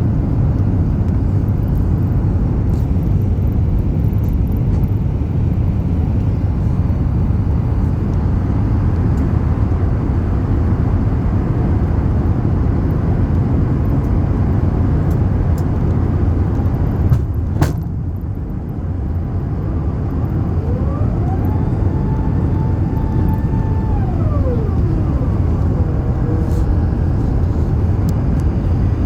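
Steady low rumble of an Emirates Airbus A380 on its landing approach. A sharp click comes about halfway through, and a few seconds later a thin whine rises, holds and falls away.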